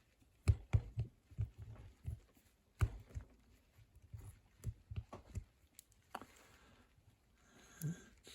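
Irregular sharp metallic clicks and taps as two lock shims are worked in a padlock's shackle holes while the shackle is pushed down, trying to free the locking pawls. The clicks come closest together in the first three seconds and thin out after.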